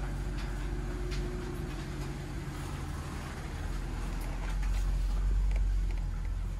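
BMW E93's engine running as the car reverses slowly out of a garage, heard from inside the cabin; the low rumble swells for a moment about four to five seconds in.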